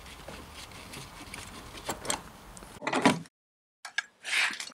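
Handling noise from a Toyota MR2 seatbelt inertia reel being worked loose from the car's interior: rustling, small clicks and knocks, with a loud clunk about three seconds in. The sound then cuts off suddenly, with a few clicks and a short rustle near the end.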